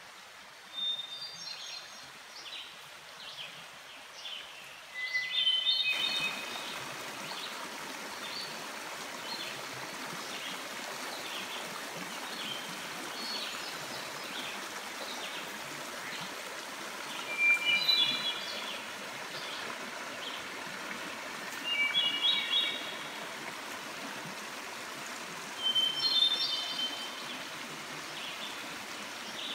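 A songbird singing short phrases of falling notes every few seconds. A few seconds in, the steady rush of a shallow stream running over rocks sets in beneath it.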